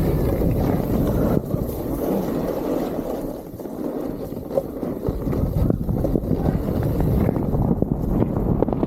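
Wind buffeting the camera's microphone: a steady, loud rumbling rush that dips briefly about three and a half seconds in, with a few faint clicks.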